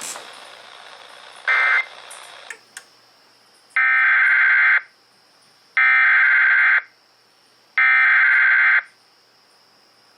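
Emergency Alert System SAME header from a TFT EAS encoder: three harsh, buzzy digital data bursts, each about a second long and about two seconds apart. A shorter burst of the same kind comes about a second and a half in. The bursts mark the start of a relayed alert.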